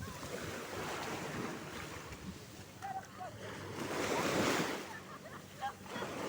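Sea waves washing onto the shore, with wind rushing over the microphone; a wave swells up loudest about four seconds in.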